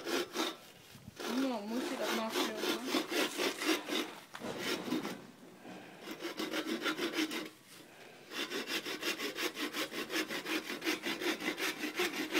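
Hand saw cutting a thin wooden strip in quick, even back-and-forth strokes, with two short pauses midway.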